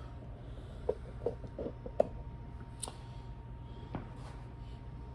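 A few light knocks and clicks of handling noise as the phone camera is moved and set down on a steel welding table, over a steady low hum with a faint constant whine.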